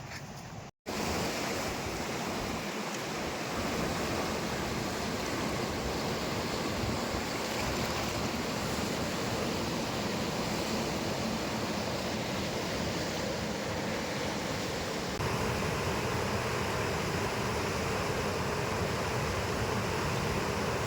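Fast-flowing river water, a steady even rush that gets a little louder about two-thirds of the way through.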